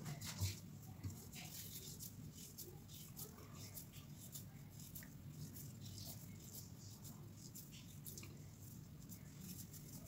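Faint crackling and rustling of hands squeezing and pressing a crumbly ground-flaxseed and nut mixture in an aluminium pan, shaping it into pinni balls, with a soft thump about half a second in and another about a second in.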